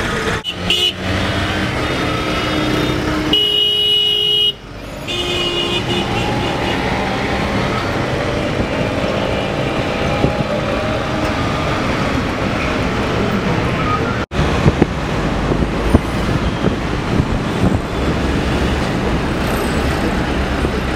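City road traffic heard from inside a moving car, with vehicle horns honking briefly a few times in the first few seconds. The sound cuts out for a moment a few times.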